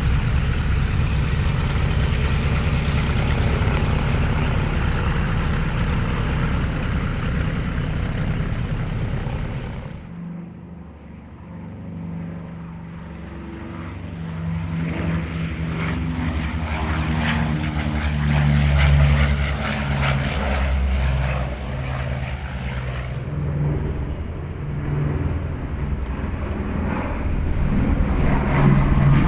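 A B-29 Superfortress's four Wright R-3350 radial engines running loudly on the ground. About ten seconds in the sound cuts to the bomber in flight, its engine and propeller drone rising as it passes, loudest about halfway through and again near the end.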